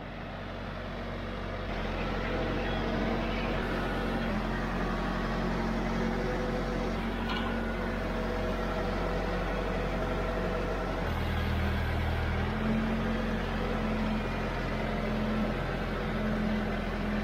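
Branson compact tractor's diesel engine running steadily at idle, its low note shifting slightly about eleven seconds in.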